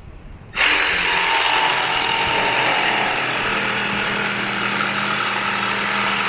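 Milwaukee M12 2445-20 cordless jigsaw starting up suddenly about half a second in, then sawing through half-inch laminate plywood at a steady speed. It cuts with no sign of bogging down, really easy.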